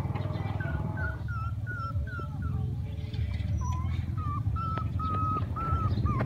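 Puppy whimpering: a run of short, high cries about three a second, then longer, drawn-out whines in the second half, over a steady low rumble.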